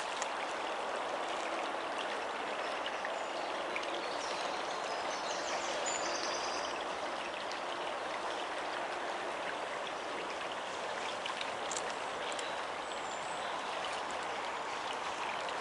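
Shallow stream flowing steadily over a stony bed.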